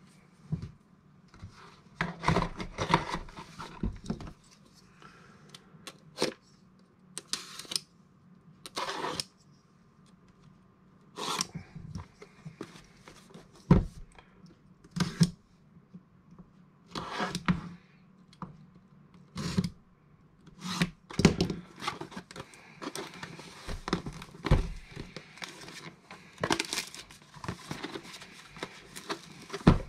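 Unboxing sounds: packaging and parts being handled, with irregular rustles, clicks and knocks.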